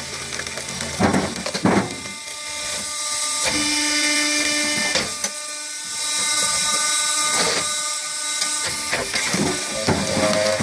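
Homemade vertical log splitter with its motor humming steadily and several sharp cracks as the blade strikes and splits logs.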